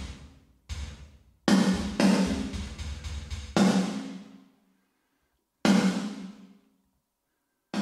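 Snare drum reverb return played on its own: a chamber-preset reverb squashed by a very fast, aggressive compressor. About six irregularly spaced snare hits, each starting suddenly and dying away in about a second.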